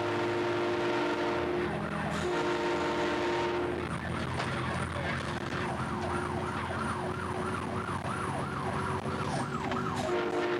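A train horn fitted to a fire rescue truck, sounding a chord of several tones in long blasts: one ending near two seconds in, another of about a second and a half, and a third starting near the end. In between, an electronic siren sweeps up and down rapidly, about two to three times a second, with the horn held faintly beneath it.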